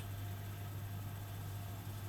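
Privileg Dynamic 4612 washing machine running with a steady low hum and faint hiss.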